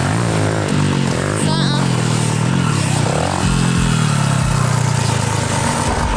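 Small 50cc mini dirt bike engine revving up and down, its pitch rising and falling with the throttle.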